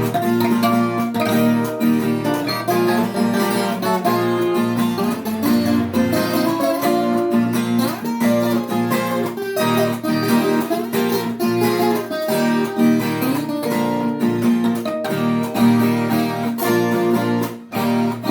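Viola caipira playing an instrumental passage of quick plucked notes with some strumming, without singing.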